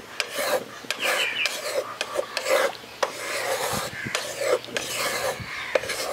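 Spatula scraping and stirring chhana in sugar syrup in a kadai over the gas, in repeated, uneven scraping strokes, as the curd is worked into the syrup for makha sandesh.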